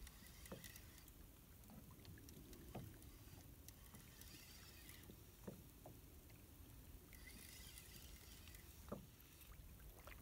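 Near silence, with a few faint, soft knocks.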